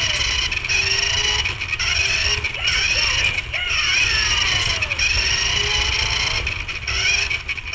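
Toy remote-control car's small electric motor and plastic gears whining as it drives, the pitch sliding up and down over and over as it speeds up and slows, over a rumble of wheels on the floor. Heard up close from a camera mounted on the car itself.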